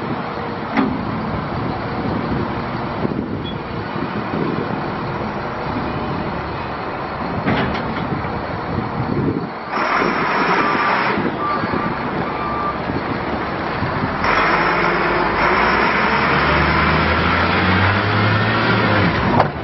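Caterpillar 3126 inline-six diesel of a 2002 Peterbilt 330 dump truck running as the truck manoeuvres. There are three short backup-alarm beeps about ten to thirteen seconds in. From about fourteen seconds the engine gets louder and rises in pitch as the truck pulls forward.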